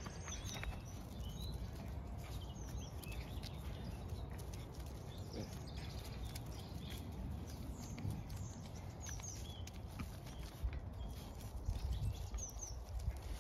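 A cat and small dogs scuffling in play on grass, their paws pattering, with a few louder knocks near the end. Small birds chirp in short, scattered notes over a steady low rumble.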